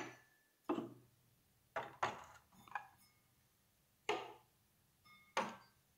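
Cut-crystal glassware clinking lightly as pieces are handled and set down on a tray: several separate short knocks, a few of them followed by a brief glassy ring.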